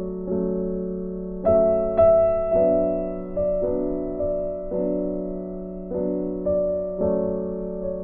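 Background piano music: slow, gentle chords, each struck and left to fade before the next, about one a second.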